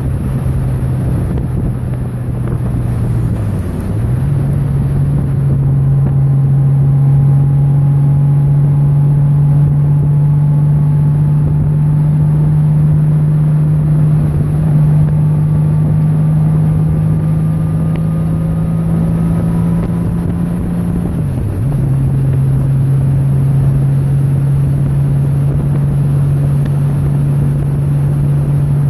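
Large touring motorcycle's engine running steadily at road speed, with wind rushing over the microphone; the engine note dips briefly and comes back twice, about four seconds in and again about twenty-one seconds in.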